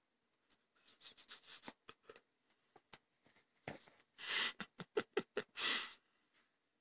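A cat clawing and biting at a fabric band on a pillow, making scratching and rustling sounds: a quick run of short scratches, then two longer rustles with small clicks between them.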